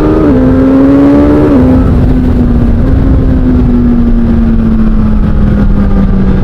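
Suzuki GSX-S1000 inline-four through an SC-Project aftermarket exhaust, pulling under power with two quick drops in engine pitch in the first second and a half as it shifts up, then its note falling steadily as the bike rolls off and slows.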